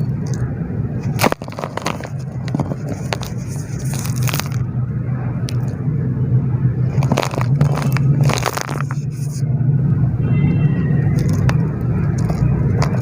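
Lumps of soft dry dirt being crumbled, with irregular crunching and crackling throughout, over a steady low hum.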